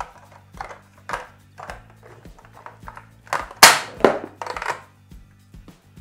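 Plastic clicks and knocks from a toy bulldozer as small plastic trash cans are loaded and shot out by its exhaust-pipe launcher; the loudest clatter, about three and a half seconds in, and the few knocks after it are the cans landing and bouncing on the table. Quiet background music runs underneath.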